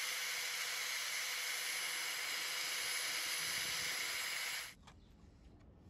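Angle grinder disc spinning as a battery's graphite carbon rod is ground to a point against it: a steady hiss that cuts off abruptly about four and a half seconds in.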